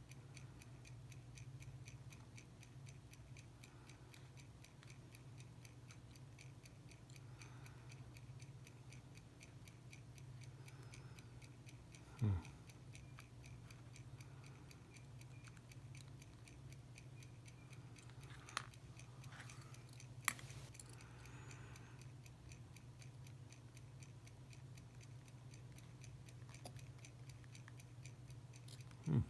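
Small sharp metal clicks of steel tweezers and a watchmaker's screwdriver against a wristwatch movement being dismantled, the sharpest about twenty seconds in, over a faint low hum and a quiet, evenly paced ticking. A short louder sound with a falling pitch comes about twelve seconds in.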